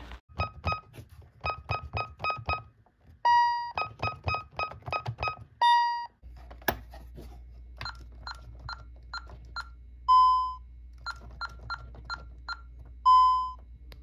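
Key-press beeps from Ademco/Honeywell 6160 alarm keypads. First, runs of short beeps from a first-generation 6160, whose tone is lower pitch, each run followed by a longer, lower steady tone. Then a newer 6160 gives the same pattern of short beeps and longer tones with slightly higher-pitched key beeps.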